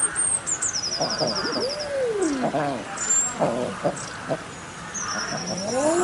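Common eider drake cooing: a drawn-out call that rises and then falls, about a second long, heard once about a second in and again starting near the end. Short lower calls and thin high chirps sound in between.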